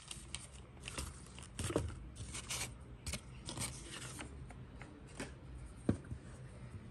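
Crumpled tissue paper crinkling and rustling in quick, irregular crackles as it is pulled away from a small wooden toy, then a single sharp knock near the end.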